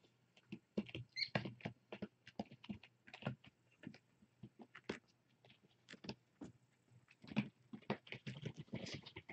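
A kitten moving right up against the microphone: irregular soft taps, patters and rustles.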